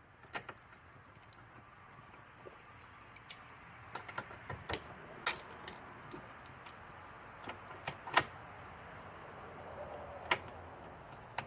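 Scattered, irregular sharp clicks and taps with soft rustling: a hand tool and plastic door-panel parts being handled and fitted into a car door.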